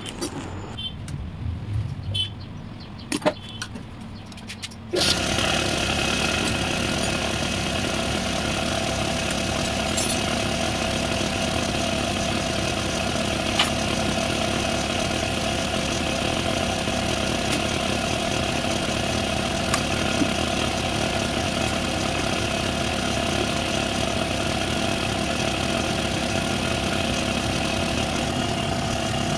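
A small engine idles steadily, coming in abruptly about five seconds in, with a few faint clicks over it.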